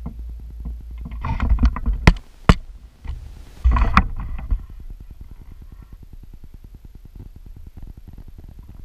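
Handling noise from a handheld camera being moved: rubbing and knocking in two bursts, with two sharp clicks in between, over a low rumble on the microphone.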